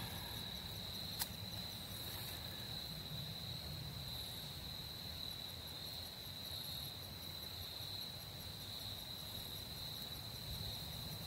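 Crickets trilling steadily in one high, even tone, with a single sharp click about a second in.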